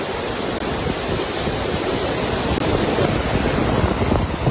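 Ocean waves washing in steadily, with wind buffeting the microphone.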